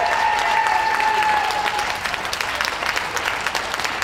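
Audience applauding steadily. Over the first two seconds, long high held cheers rise above the clapping and then fade.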